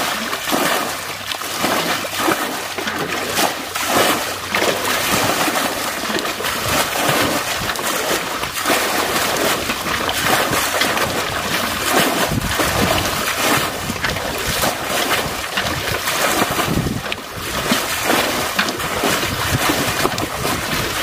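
Muddy water splashing and sloshing as buckets are dipped into a shallow channel and flung out over the bank again and again: bailing the channel dry to get at the fish.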